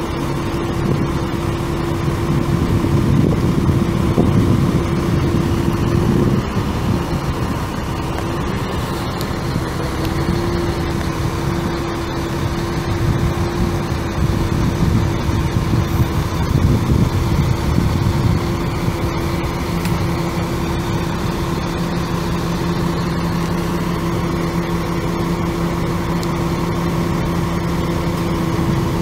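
Caterpillar C7 7.2 L inline-six turbo diesel of a Chevrolet C8500 bucket truck idling, with a steady hum over the engine note. The rumble swells twice, and a second steady tone joins about two-thirds of the way through.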